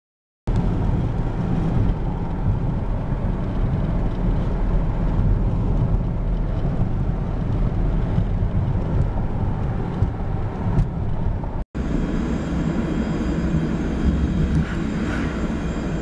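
Steady road and engine rumble heard inside a moving car's cabin. It cuts out for a moment about twelve seconds in and then carries on.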